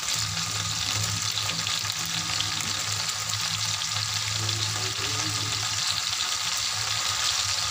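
Mushrooms sizzling steadily as they fry in oil and ghee in a kadhai, with a steady low hum underneath.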